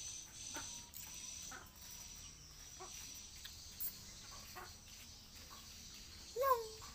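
Scattered short bird calls over a steady, faint high insect drone, with one louder, longer call near the end.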